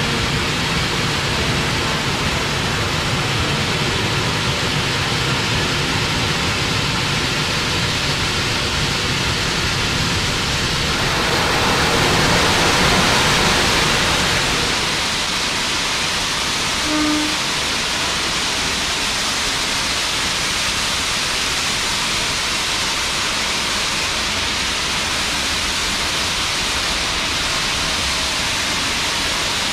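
Steam hissing steadily from the C38 class steam locomotive 3801, standing still, swelling louder and brighter about eleven to fourteen seconds in before settling back to a steady hiss.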